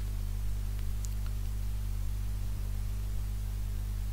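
Steady electrical hum with a low buzz and hiss from the recording chain between the spoken lines, with a couple of faint ticks about a second in.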